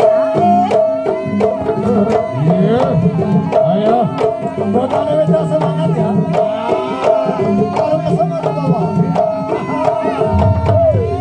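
Jaranan Buto ensemble music: hand drums beating fast and densely under a held high tone and a wavering melody line. A low, sustained tone comes in near the end.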